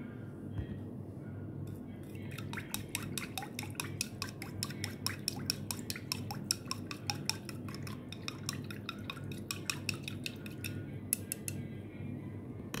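A metal spoon clinking rapidly and repeatedly against a glass as it stirs liquid, starting about two seconds in and stopping near the end.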